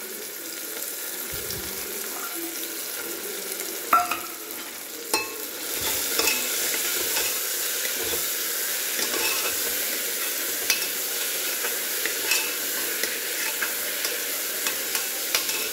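Onions, tomatoes and peas sizzling in hot oil in a pressure cooker while a spoon stirs and scrapes them, clicking against the pot several times. The sizzle grows a little louder about five seconds in.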